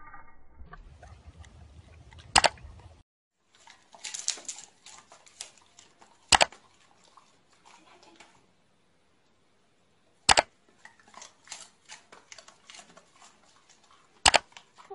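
Four loud, sharp clicks about four seconds apart, with faint crackling and tapping sounds between them.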